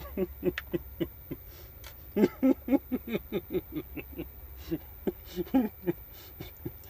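A person eating, with chewing and mouth sounds coming quickly and irregularly, several a second.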